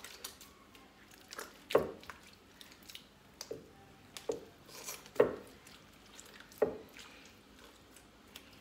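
Butter being kneaded and squeezed by hand in water in a glazed clay dish: a series of irregular wet squelches and slaps, about five of them louder than the rest. This is the washing stage of making smen, rinsing the last of the buttermilk out of the butter.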